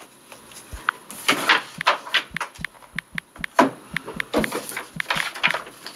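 Taps on a phone's touchscreen keyboard: a run of quick, irregular clicks, with louder rustling noises among them.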